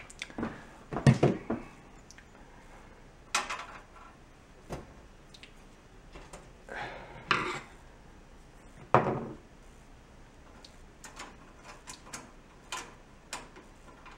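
Scattered knocks and clicks of hands handling the metal burner parts of a gas stovetop, with a few louder knocks about one, three, seven and nine seconds in.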